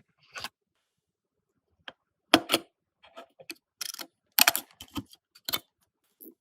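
Irregular hard clicks and clacks of PC parts being handled and fitted, with a couple of louder knocks about two and a half and four and a half seconds in.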